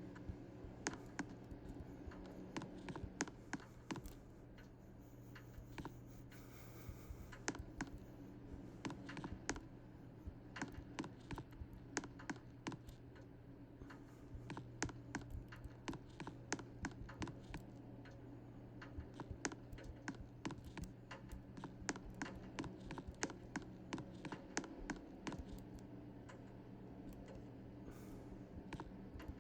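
Typing on a computer keyboard: irregular quick clicks throughout, over a steady low hum.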